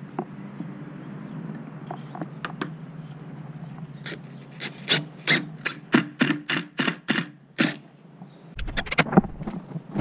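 Makita 18-volt cordless drill working screws into the poplar table frame. Midway it makes a run of about a dozen sharp ratcheting clicks, roughly four a second, for about three seconds.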